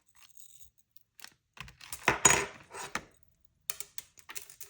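Small metal jewelry pieces clinking and rattling as they are handled and set down on a pile, with a loudest cluster of clinks about two seconds in and lighter clicks near the end.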